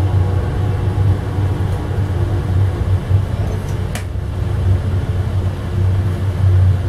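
Steady low rumble of a moving Amtrak passenger train, heard from inside its rear car, with one sharp click about four seconds in.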